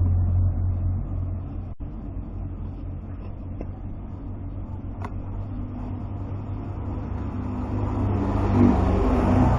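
Small electric motor of a homemade cordless grass cutter running with a steady hum, growing louder again near the end.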